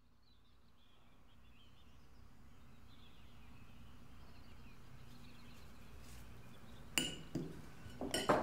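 Faint room ambience fading in, with faint bird chirps from outside. About seven seconds in comes a sharp clink, followed by a few more small clinks near the end: a knife knocking against a plate as an apple is cut.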